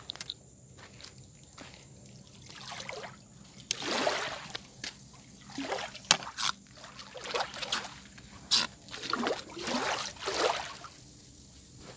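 Shallow seawater sloshing and splashing over submerged concrete steps in a string of short, irregular surges from about three seconds in, dying away near the end, with a sharp click about six seconds in.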